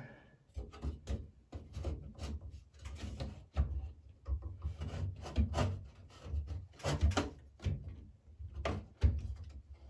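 Irregular scraping, rubbing and knocking of a Broan 688 bathroom exhaust fan's sheet-metal motor assembly being pushed up into its metal ceiling housing, its tabs being worked into the grooves. There are a few louder thumps, one about a third of the way in and others near the end.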